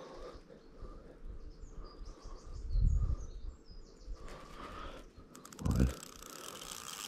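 Birds chirping in the background while a fishing reel is worked against a hooked fish. There are two low thumps, about three seconds in and again near six seconds. From about five seconds in comes a fast, even ticking from the reel.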